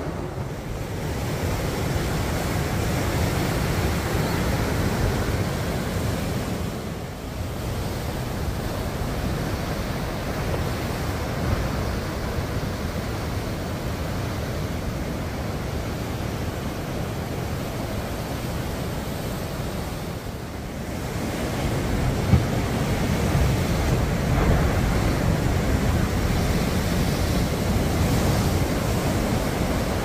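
Heavy swell waves breaking and surging against sea stacks and rocks: a continuous rush of surf, with wind buffeting the microphone. It dips briefly twice and grows louder about two-thirds of the way through.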